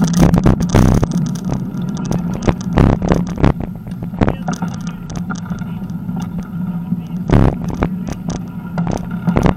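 Bicycle rolling along a rough, cracked asphalt path, with a steady low hum from the tyres and frequent knocks and rattles as the bike goes over bumps.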